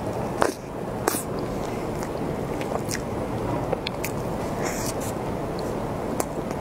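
Close-up eating sounds of cream puffs with green cream filling: wet chewing and squishing of the soft pastry and cream, with sharp mouth clicks scattered irregularly through it.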